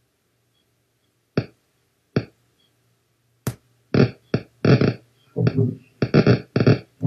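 Audio playback of a single human hippocampal neuron recording, the cell's spikes heard as pops: a few separate pops, then from about four seconds in a run of dense buzzing bursts as the cell fires hard. This is the context cell firing again as the subject recalls the Tom Cruise clip.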